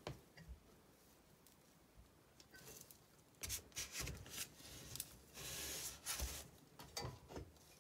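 A Fiat 126 Bis flywheel and crankshaft handled on a cardboard-covered bench. From about halfway through there are scattered metal knocks and clunks, a short scrape as the flywheel is slid off the crankshaft and laid flat, and a few more knocks as the parts are set down.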